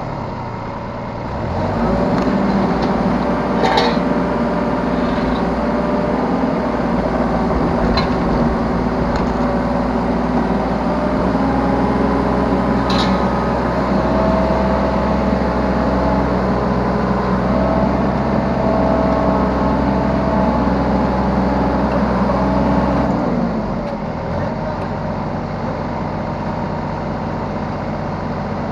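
Yanmar B3Σ 3-ton mini excavator's diesel engine and hydraulics running under load as it works, heard from the operator's seat, with a few sharp knocks along the way. Near the end the engine drops to a lower, quieter run.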